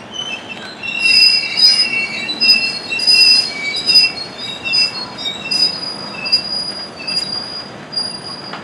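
Herzog tie train's cars rolling past, their steel wheels squealing against the rails in shrill, on-and-off high-pitched squeals over the rumble of the train. The squealing is loudest in the first half and thins out near the end.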